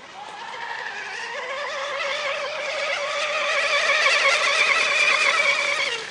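Radio-controlled racing boat running flat out, its motor a high-pitched, wavering buzz that grows louder as the boat comes closer, then drops in pitch and falls away sharply just before the end.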